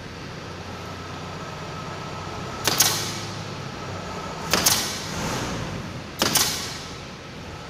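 Pneumatic nail gun firing three times, about one and a half to two seconds apart, fastening synthetic thatch to the roof. Each shot is a sharp crack followed by a brief hiss of exhaust air, over a steady low hum.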